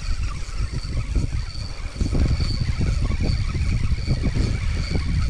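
Wind buffeting the microphone in irregular gusts, over the faint steady whine of a spinning reel being cranked to reel in a hooked fish.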